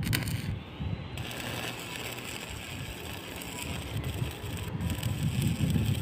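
Stick-welding arc crackling steadily as a bead is run on steel rebar of an anchor bolt cage. The arc strikes about a second in.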